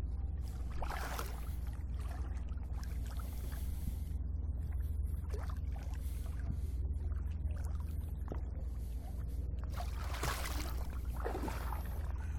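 Lake water splashing and sloshing close to the microphone as a swimmer moves through it, with louder splashes about a second in and again near the end, over a steady low rumble.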